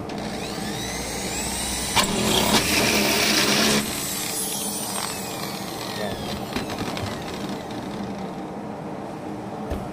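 A motor engine revving up, with a click and a loud rush of noise about two seconds in that cuts off abruptly nearly two seconds later, then a slowly falling tone as it fades.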